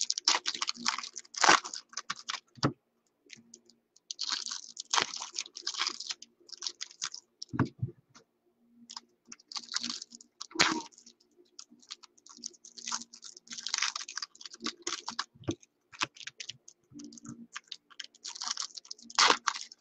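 Crinkling, rustling and clicking of trading-card packaging and cards being handled, in irregular bursts of a fraction of a second to about a second.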